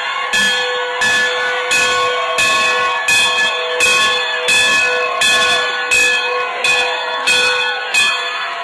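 A large bell, the Victory Bell, being rung over and over in a fast, even rhythm of about one clang every 0.7 seconds, its ringing carrying on between strokes.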